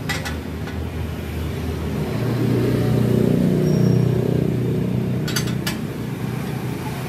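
A motor vehicle engine running, growing louder through the middle and then easing off. A few sharp metallic clinks of a spanner on the bike's bolts come near the start and twice a little after the middle.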